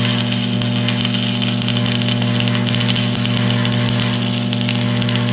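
Stick-welding arc crackling steadily as a flux-coated electrode is dragged along a steel plate, with a steady low hum underneath.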